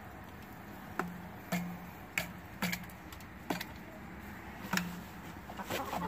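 Chickens pecking the heads of a miniature toy drum kit: about six irregular taps, each with a short low ring from the drum.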